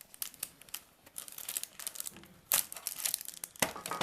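Crinkling of a trading-card pack wrapper being handled, a run of quick crackles with a couple of louder, sharper crinkles about two and a half seconds in and near the end.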